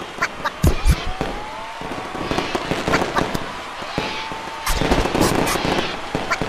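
Fireworks going off: whistling rockets sliding in pitch, with a series of sharp bangs and crackling bursts.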